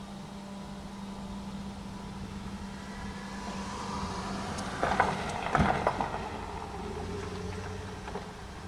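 Steady hum inside a vehicle's cabin, with a short cluster of clicks and knocks about five to six seconds in.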